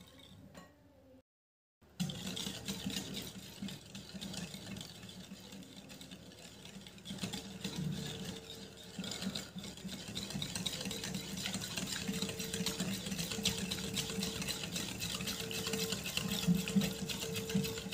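A wire whisk beating a thin milk-and-oil mixture in a glass bowl: fast, continuous rattling and clicking of the wires against the glass, with a faint slosh of liquid. It starts about two seconds in, after a brief dropout.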